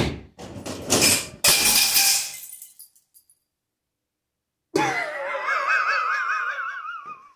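A sharp click, then a harsh, noisy burst about two seconds long; after a stretch of dead silence, a man wails a high falsetto note with wide, regular vibrato for about two and a half seconds, dropping in pitch at first and then holding.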